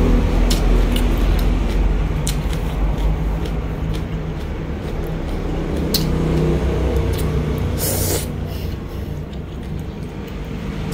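Eating sounds: chewing, with sharp clicks of chopsticks and a spoon against a bowl of noodle soup and a short noisy burst about eight seconds in, all over a steady low rumble that is the loudest sound.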